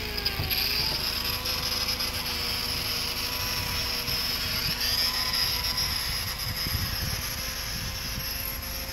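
Machinery of a tall platform rig running: a steady hum whose pitch dips and rises again about half a second in, over irregular low mechanical clunks and ratcheting. Steady high insect trilling is underneath.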